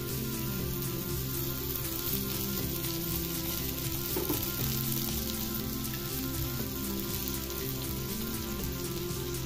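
Fish pieces frying in hot oil in a flat pan, sizzling steadily.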